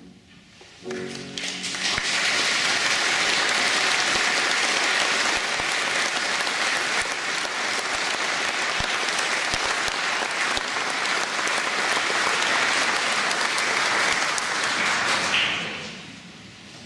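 Audience applauding: clapping swells in about a second after the choir's last sung chord fades, holds steady and full for about thirteen seconds, then dies away near the end.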